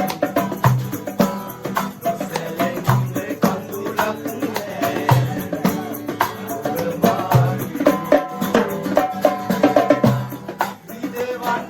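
Background music with a steady beat: hand percussion with a low drum hit about every second and a half under a melody.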